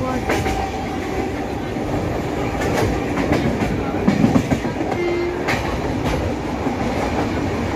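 Passenger train running along the track, a steady rumble of wheels on rails with occasional sharp clacks from the rail joints, heard from aboard the coach.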